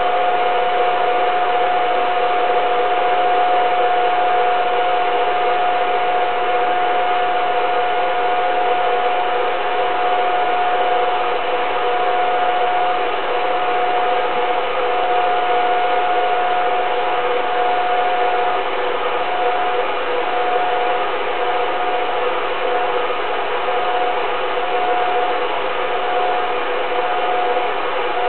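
Steady mechanical whir with a constant high hum tone, typical of a home-movie film projector running while the old film is played. About halfway through, the hum tone begins to flutter on and off.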